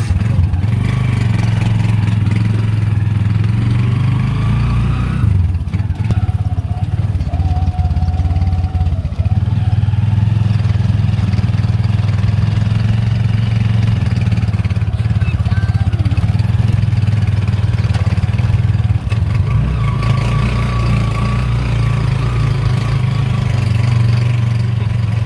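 Motorcycle engine of a sidecar tricycle running steadily under way, heard close from inside the sidecar, its note dipping briefly about five seconds in.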